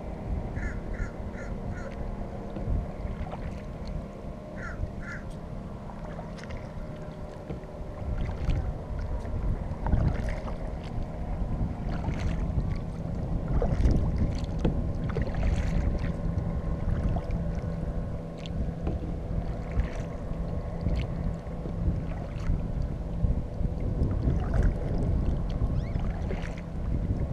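Kayak paddle strokes splashing in the water, with wind rumbling on the microphone. A bird calls in a quick run of four short cawing notes near the start and twice more about five seconds in.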